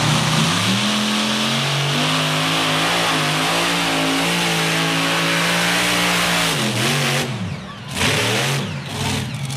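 Pro stock pulling tractor's turbocharged diesel engine at full throttle, dragging the weight sled down the track. The revs climb over the first second or two and hold steady, then drop and waver near the end as the throttle comes off.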